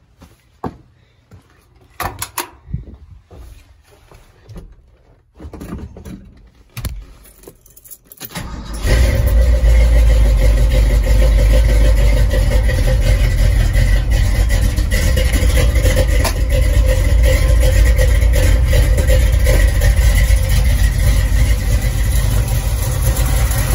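A few knocks and clunks, then about eight and a half seconds in the 1969 Ford F100's freshly rebuilt 302 Windsor V8 fires and settles into a loud, steady idle with a deep rumble, run cold through long-tube headers.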